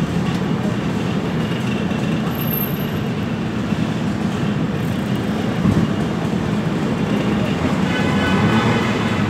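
Vespa scooter engine running steadily at low speed, a continuous low rumble.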